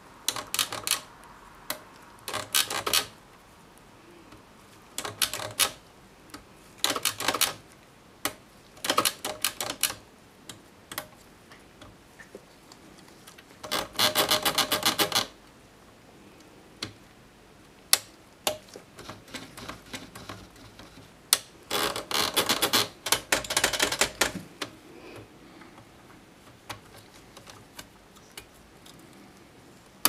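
A 1937 Torpedo 15 portable typewriter's carriage mechanism being worked by hand, giving short bursts of rapid metallic ratcheting clicks. There are about seven bursts with quiet gaps between them, and the longest come around the middle and about two-thirds of the way through.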